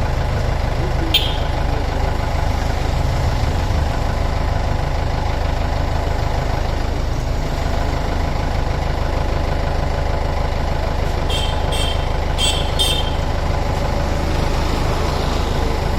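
Heavy diesel engine running steadily. A short sharp click comes about a second in, and four short high-pitched sounds come in quick succession a little past the middle.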